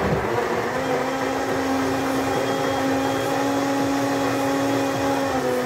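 Countertop electric blender running at a steady speed, its motor humming as it blends a juice mixture; the pitch dips briefly near the end.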